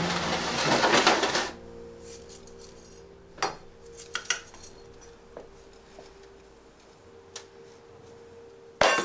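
Hands-on bonsai planting work: a rustling, scraping burst for about a second and a half at the start, then a few scattered light clinks of tools against the pot.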